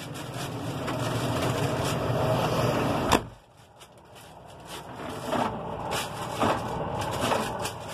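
Steady rushing hiss of air blowing from a dashboard air-conditioning vent, with the Fendt 930 Vario's engine idling underneath, heard inside the tractor cab. About three seconds in there is a knock and the hiss drops away sharply, leaving the quieter idle with a few light clicks and knocks.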